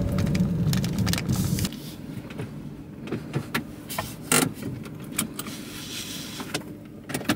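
Inside a Daihatsu Ayla 1.0 X CVT: the car's low running and rolling rumble cuts off suddenly a little under two seconds in as it stops at the fuel pump. Scattered small clicks and knocks of things being handled in the cabin follow.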